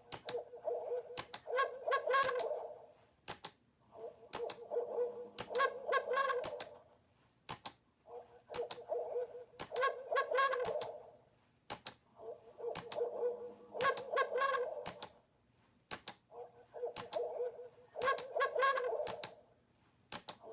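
A looped pattern of sharp clicks with a pitched, call-like tone, the same phrase repeating about every three and a half seconds.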